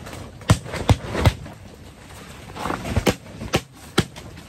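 A plastic plant pot of soil and potatoes being tipped out and knocked: a series of sharp knocks and thuds, three in quick succession and then three more a couple of seconds later, over steady wind noise.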